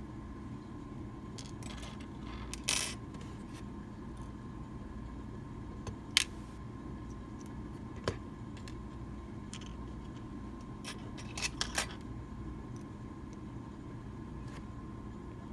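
Small metallic clicks and a short scrape from a Medeco Original lock cylinder being taken apart by hand, a pick tool working at the pin chambers. The clicks come singly, the loudest about six seconds in and a quick cluster near the end, over a steady low hum.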